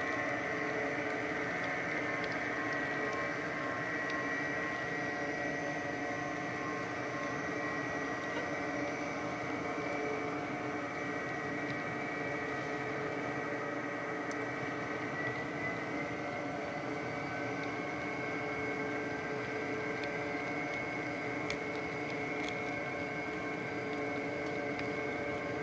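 HO scale coal hopper cars rolling past on model track: a steady whirring rumble of small wheels on rail, with a steady high-pitched whine over it.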